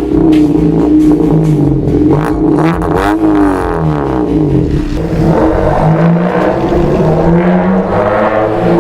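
Eighth-generation Honda Civic's four-cylinder engine running loud through a straight-through exhaust with the catalytic converter removed. Its pitch falls about three seconds in, then climbs again. Music plays underneath.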